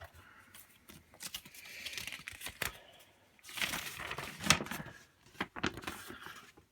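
Plastic packaging crinkling and rustling, with scattered clicks and taps of small plastic toy parts being handled.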